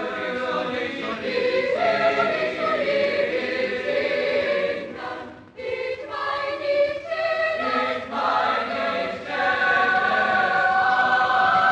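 A youth choir singing in chorus, with a brief break about five and a half seconds in and a long held chord near the end.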